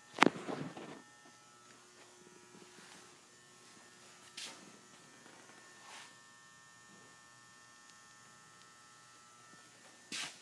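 Steady electrical mains hum and buzz. A sharp knock comes just after the start, with a few fainter knocks later.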